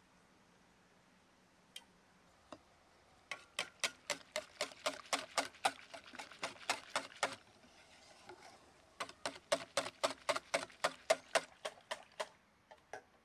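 Wire whisk beating flour in an enamel bowl, its wires clicking against the bowl at about four to five strokes a second. There are two runs of a few seconds each with a short pause between, after a couple of single clicks.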